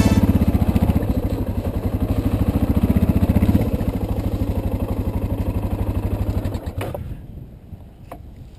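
Suzuki DR650 single-cylinder dual-sport motorcycle engine running at low speed with steady, even exhaust pulses. It eases a little after about three and a half seconds and dies away about seven seconds in.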